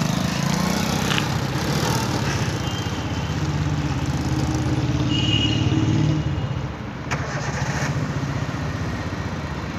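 Hero Honda Passion's single-cylinder four-stroke engine with a modified exhaust, running as the motorcycle rides off and around. The engine note climbs a little for the first few seconds, then drops about six and a half seconds in, with one short click just after.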